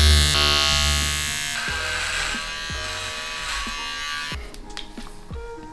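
Cordless electric hair clippers buzzing as they shave hair off the head. The buzz is loudest and steadiest at first, turns lower and rougher about one and a half seconds in, and drops away near the end.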